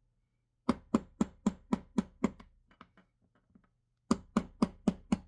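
Small hammer tapping a 1/16-inch punch against the steel ejector retaining pin of a Remington 700 bolt to drive the pin out. There are two runs of quick, even taps, about four a second, with a pause of about a second and a half between them.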